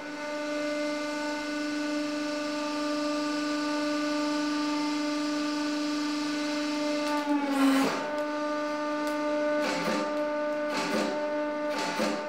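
A 150-ton hydraulic press running with a steady pitched whine as the ram comes down. About seven and a half seconds in, the ram meets the flattened bubble wrap and the whine dips slightly under the load. Then the remaining bubbles start popping with sharp cracks, about one a second.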